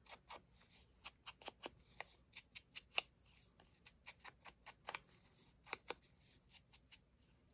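Faint, irregular small taps and scuffs, a few a second, as a round-handled ink blending tool is dabbed and rubbed around the edges of a small paper label to distress it with ink.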